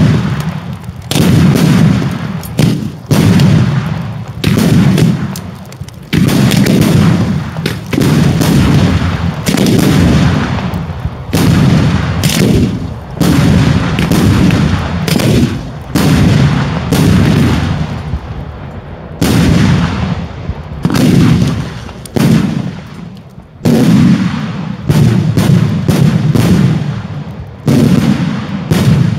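Daylight fireworks display firing a near-continuous barrage of loud bangs, often several a second, each followed by a low rumbling tail.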